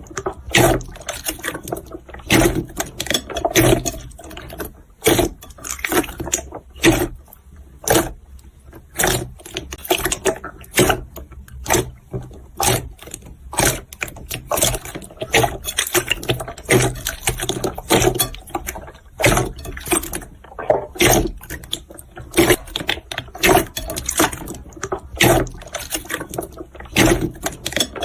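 Slime being squeezed and kneaded by hand, making a fast, irregular run of wet clicks and pops.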